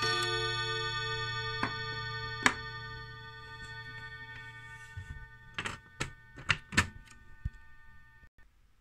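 Mantle clock's chime rods struck by their hammers and ringing together as a chord that slowly dies away, with the last blows about a second and two and a half seconds in. A few short knocks follow near the end.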